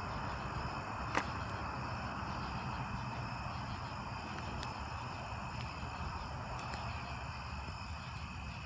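Evening insect chorus, crickets trilling steadily at several fixed high pitches, over a low steady hiss. There is one sharp click about a second in.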